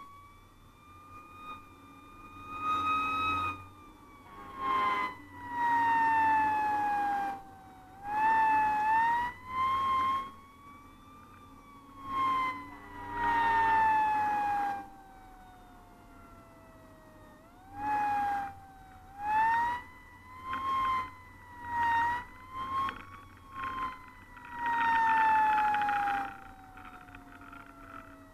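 Fire engine's siren winding up and down in a slow wail, with repeated blasts of its air horn layered over it, heard from inside the cab while responding.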